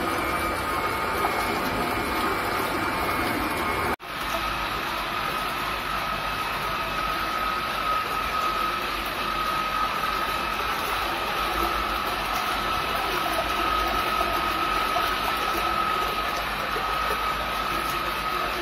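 Lab-scale high-shear batch mixer running: a steady electric motor whine over liquid churning in a bucket. About four seconds in the sound cuts off abruptly and resumes with the whine at a lower pitch.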